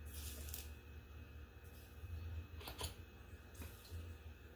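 Faint handling noises from working on the opened smart plug: a brief hiss near the start and a few soft clicks about three seconds in, over a low steady hum.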